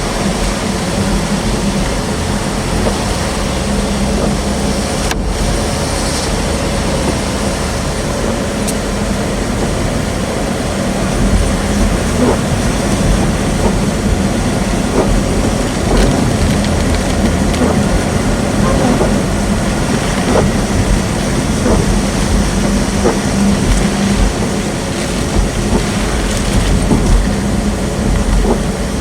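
Loud, steady rush of tornadic wind and heavy rain around and on a vehicle, with a low hum beneath and scattered sharp ticks from about eleven seconds in.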